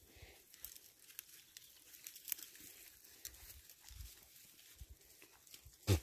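Faint, scattered crackling and rustling of grass and dry twigs, with a short thump just before the end.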